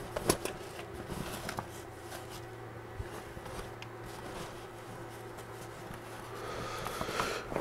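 Fabric of a cloth laser fire enclosure rustling as it is handled, with scattered light clicks, over a faint steady hum.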